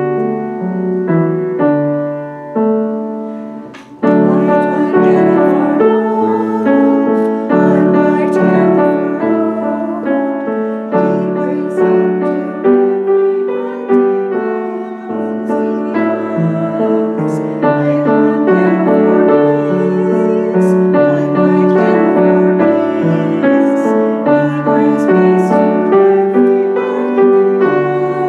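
Piano music: a slow piece of held chords under a melody. It fades out about four seconds in, then a new phrase begins and carries on.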